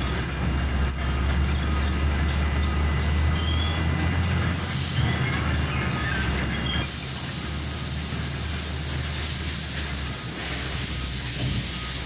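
Steady low mechanical hum, like a running engine or machine. A high hiss comes in briefly about four and a half seconds in, then again from about seven seconds on.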